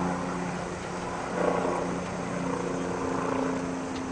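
Steady mechanical drone: a low engine-like hum with a couple of held tones under a rushing noise, the tones shifting slightly about a second in and again midway.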